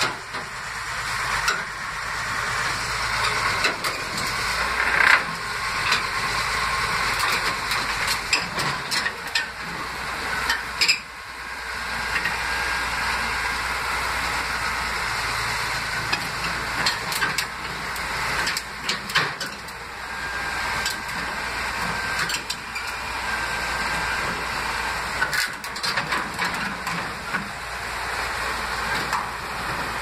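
Komatsu crawler bulldozer's diesel engine running steadily under load as it drives up onto a lowboy trailer, with irregular clanks and knocks from its steel tracks on the steel ramp and deck.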